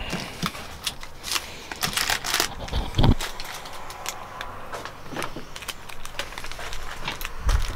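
Rustling, crackling and light clicks of cards, paper and boxes being handled and moved through in a cluttered room. A dull thump comes about three seconds in, and another near the end.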